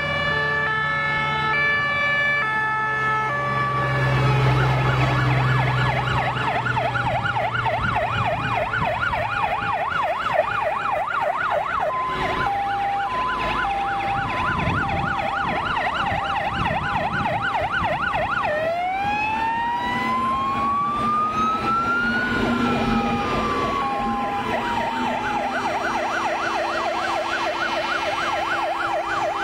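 Several fire engine sirens sounding at once as a column of fire trucks passes: stepped two-tone hi-lo sirens at first, then fast warbling yelp sirens, and about two-thirds through a wail that rises slowly and falls again. Truck engines rumble past around four to six seconds in.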